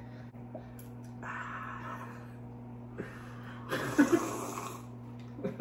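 A person breathing out audibly about a second in, then drinking from a glass about four seconds in, over a steady low hum.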